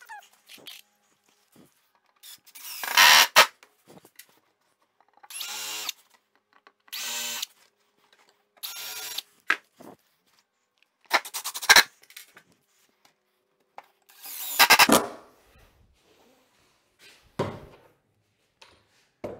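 Cordless drill driving countersunk screws into chipboard in about seven short runs of half a second to a second each, with pauses between them; a couple of the runs end in a quick series of clicks.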